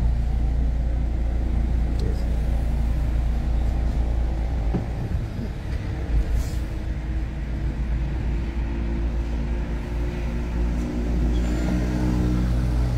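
Road traffic: cars and a motor scooter driving past, their engines running over a steady low rumble.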